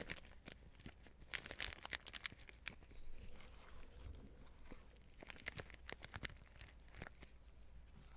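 Nitrile-gloved hands kneading and squishing a sticky mixture of butter and dashi fish powder: soft sticky crackling in bursts, twice thickening into dense clusters of small clicks.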